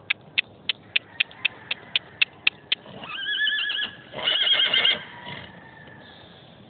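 Quarter horse gelding whinnying twice, starting about three seconds in; the second call is louder and shakier than the first. Before it comes a run of sharp, evenly spaced clicks, about three a second.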